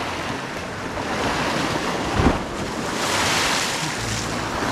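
Sea waves washing against the rocks of a shore ledge, with wind buffeting the microphone. A single brief thump about two seconds in.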